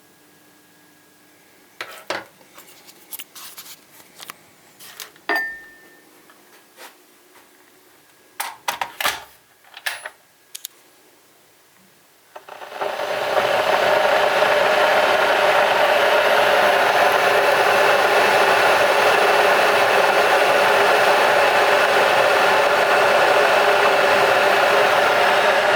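Scattered short clicks and rubbing handling noises over a quiet background. About halfway through, a loud, steady rushing noise like a blower or hair dryer starts abruptly and keeps going.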